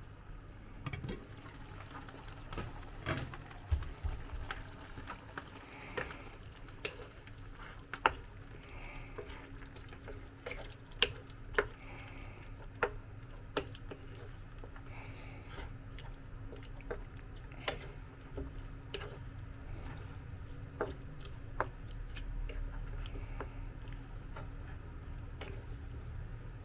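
Pot of chicken afritada stew with added water heating back to a boil: scattered small sharp pops and clicks at irregular intervals over a low steady hum.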